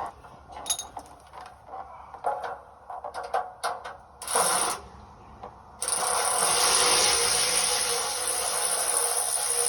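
Scattered clicks of wrenches and bolts on a diesel truck's DEF filter housing, then from about six seconds a ratchet running a bolt out with a continuous buzz.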